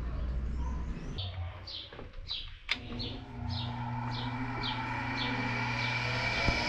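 A bird calling a quick series of short, falling chirps, about two a second, over a low steady hum, with a single sharp click partway through.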